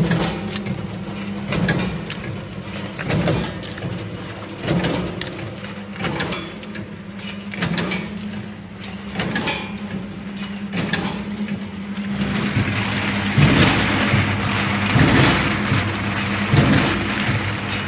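Kadıoğlu CKK300 impact-type walnut cracking machine running: a steady motor hum, with a crack about every one and a half seconds as walnuts are struck, and many small clicks and rattles of shells. About twelve seconds in, the rattling gets louder and denser.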